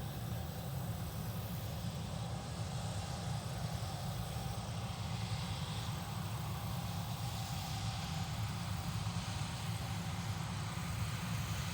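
Farm harvest machinery engine running steadily: a constant low rumble with a faint steady whine above it.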